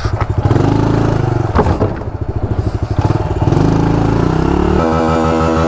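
Honda CRF110 pit bike's small single-cylinder four-stroke engine running under way, its revs rising and falling several times, with one sharp knock about a second and a half in. Near the end, guitar music comes in and holds steady.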